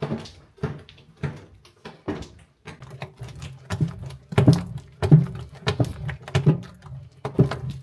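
Wooden paddle beating a thick egg and sugar halva mixture in a large stainless steel pot: regular slapping strokes, about one and a half a second, growing louder and heavier about four seconds in.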